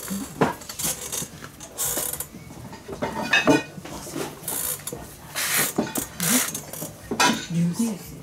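Leather glove lace being drawn through the fingertip lace holes of a Kubota Slugger infielder's glove during relacing: an irregular series of short rasping pulls, about half a dozen.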